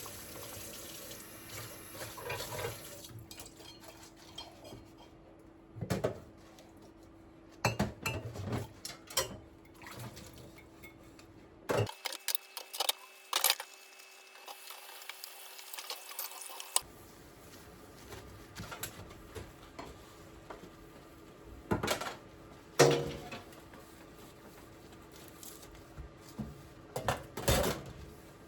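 Kitchen work: dishes and cutlery clinking and knocking at irregular intervals, with water running briefly at the start.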